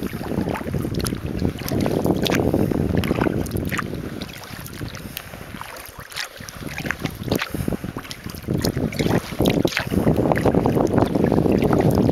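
Wind buffeting the microphone as a kayak is paddled: a rumbling rush that eases off in the middle and picks up again near the end, with scattered light splashes and drips of paddle water.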